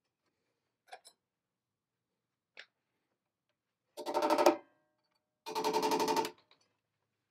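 A screwdriver driving the small screws of a machine nameplate into a cast-iron column: two short bursts of fast, even clicking about a second and a half apart, the second a little longer, after a couple of faint taps.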